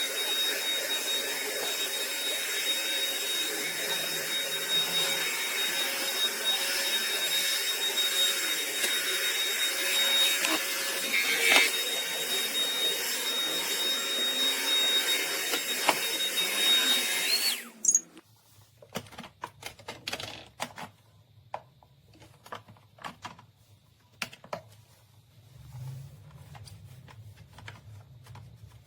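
Bissell CrossWave OmniForce wet-dry vacuum running, a steady rushing noise with a thin high whine. It is switched off and cuts out suddenly about seventeen seconds in, followed by scattered light clicks and knocks of handling.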